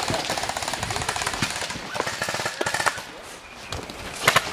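Airsoft guns firing on automatic, a rapid rattling burst that runs for about three seconds, dies down, then picks up again in short bursts near the end.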